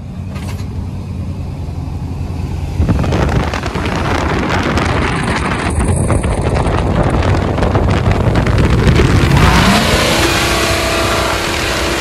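Lifted Chevrolet Silverado pickup accelerating along the street, its engine and exhaust loud. The noise swells about three seconds in. Near the end the engine's pitch rises and then holds steady.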